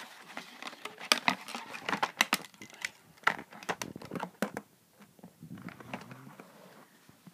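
Crinkling, crackling packaging and clicking cardboard as a plastic dice cup is worked out of a board-game box, a busy run of sharp crackles for about four seconds that then dies down to light handling noise.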